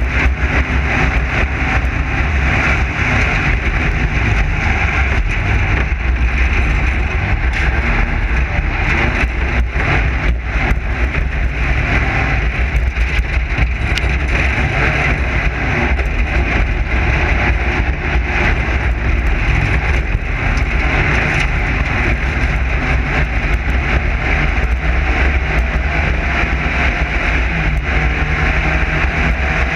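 Class 9 desert race car running hard over rough ground: a steady, loud engine drone with many knocks and rattles from the chassis.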